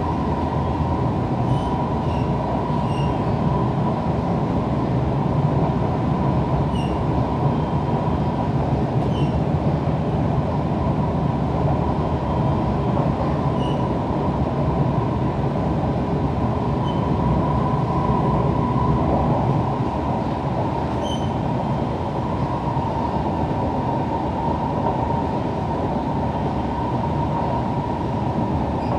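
Siemens C651 metro train running, heard from inside the carriage: a steady rumble of wheels and running gear under a constant high hum.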